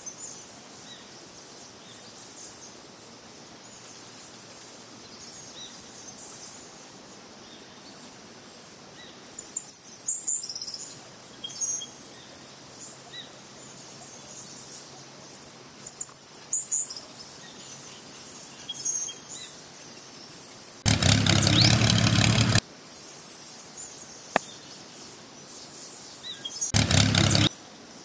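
Birds chirping in short, scattered calls over a steady outdoor background. Two loud bursts of broad noise cut in, one lasting nearly two seconds about three-quarters of the way through and a shorter one near the end.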